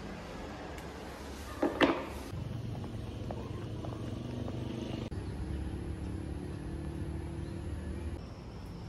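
Steady low background hum outdoors, broken about two seconds in by a brief loud clatter, the loudest sound here; the hum changes abruptly twice.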